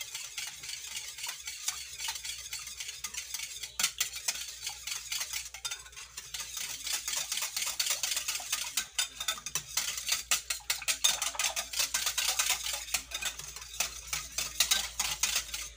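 Wire balloon whisk beating a thin egg, oil, milk and semolina batter in a glass bowl: quick, rhythmic clicking and swishing of the wires against the glass. The strokes come faster and louder from about halfway.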